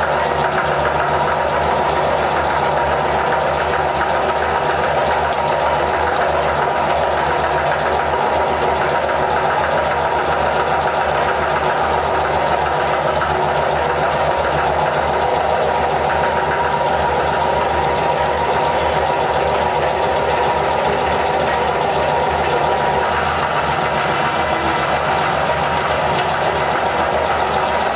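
Meat grinder running with a steady mechanical hum, its auger grinding dry cake biscuits into crumbs.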